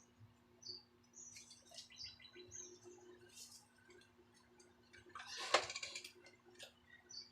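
Faint chirps of small birds, short falling notes repeated throughout, over a faint low steady hum. A brief louder clatter comes about five and a half seconds in.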